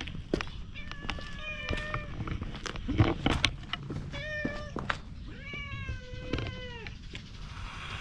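Stray cat meowing three times, the last call the longest, with light clicks throughout and a thump about three seconds in.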